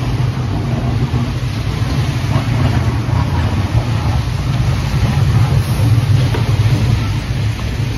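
Vintage electric tram rolling slowly along its track, its motors giving a steady low hum.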